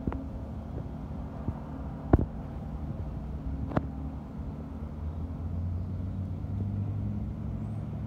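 Steady low mechanical hum, growing a little louder about halfway through, with two sharp clicks about two and four seconds in, the first the louder.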